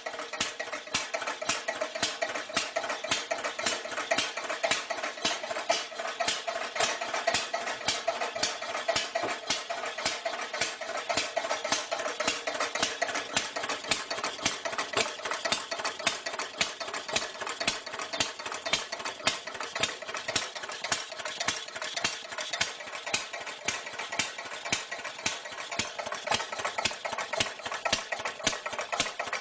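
Steam engine running steadily: a fast, even rhythm of sharp beats, several a second, over a constant rushing noise.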